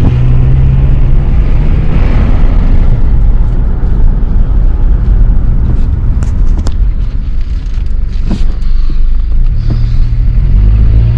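Car engine and road noise heard from inside the cabin while driving slowly; the engine hum eases off in the middle and picks up again near the end.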